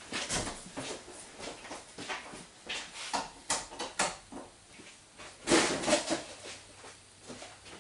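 Scattered knocks, clicks and shuffling from a person moving about in a small room, including the click of a light switch being turned off, with a louder burst of noise about five and a half seconds in.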